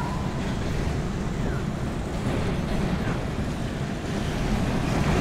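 City street traffic noise: a steady hiss of tyres on wet road over a low rumble, getting a little louder near the end.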